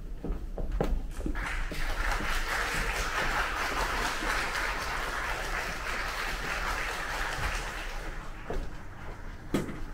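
Concert-hall audience applauding a performer's entrance, heard from backstage through the open stage door. The applause builds about a second in and dies away near the end, where a door closes with a sharp click.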